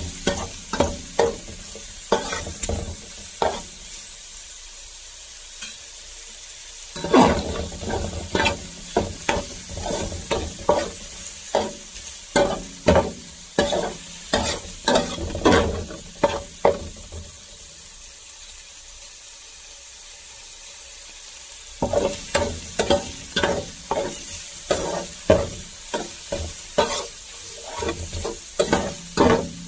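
Diced tilapia searing in a paella pan, a steady sizzle under quick, repeated scrapes and taps of a metal spatula turning the pieces. The scraping stops twice for a few seconds, leaving only the sizzle.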